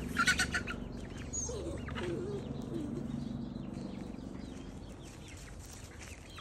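Young two-month-old hens chirping and clucking, with a quick run of sharper chirps just after the start, the loudest moment, and a wavering lower call a second or two later.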